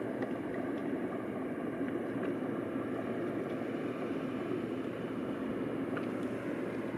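Intermodal freight train of container and trailer wagons rolling past, a steady rumble of wheels on rails with a few faint clicks.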